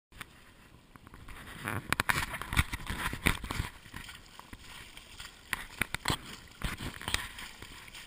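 Boots wading through a shallow, muddy stream: irregular splashes and sloshing footsteps in running water, busiest about two seconds in.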